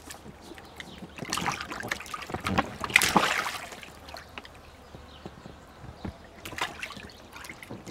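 Water splashing and sloshing in a small inflatable paddling pool as a baby plays in it, in scattered splashes, the loudest about three seconds in.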